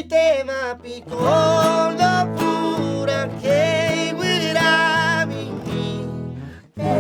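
Guarania music: a voice singing a slow, held melody with vibrato over plucked and strummed acoustic guitar.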